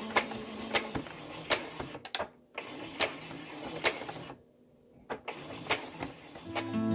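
Domestic sewing machine stitching a fabric hem, its mechanism running with sharp clicks every half second to second. It stops briefly about four and a half seconds in, then starts stitching again.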